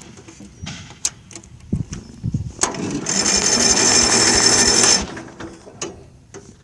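Engine cranked by its starter motor for about two seconds, a loud mechanical whirr with a high whine, that stops abruptly; it carries the strange sound heard when cranking. A few light clicks and knocks come before it.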